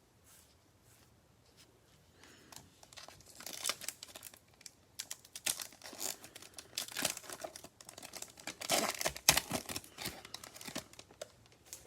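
Plastic wrapper of a trading-card pack being torn open and crinkled by hand, in irregular crackling bursts that start a few seconds in.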